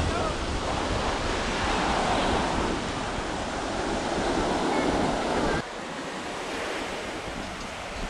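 Ocean surf washing steadily onto the beach, mixed with wind buffeting the microphone. About five and a half seconds in, the low wind rumble drops away suddenly and the sound turns quieter.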